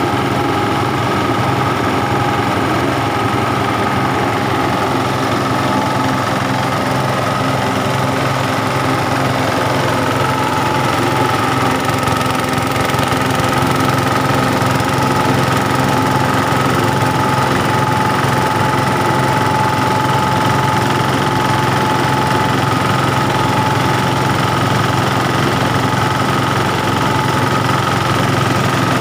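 KM CH60J grass-and-straw chopper running under load, steady and loud throughout. It has an engine-driven drone with a whine and is milling rice husks into fine bran powder.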